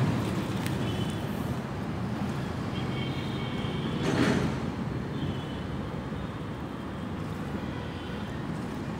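Steady rumble of traffic crossing the concrete bridge overhead, with faint high squealing tones now and then and a brief swell about four seconds in.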